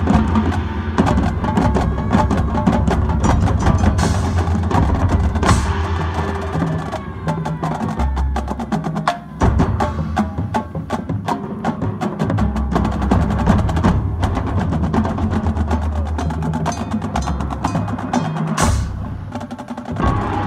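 Marching band playing its field show, heavy on percussion: a busy run of drum and percussion hits over low sustained notes. Two loud crashes stand out, about five seconds in and near the end.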